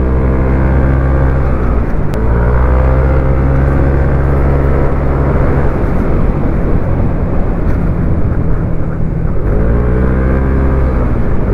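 Scooter engine running steadily while the scooter is ridden at speed. The note dips briefly about two seconds in, then near the end eases off and climbs again as the throttle is reopened.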